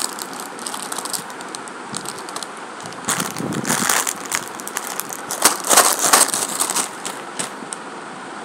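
Crinkly plastic snack packet crackling as a toddler mouths and handles it, in louder bursts about three seconds in and again around five and a half to six seconds.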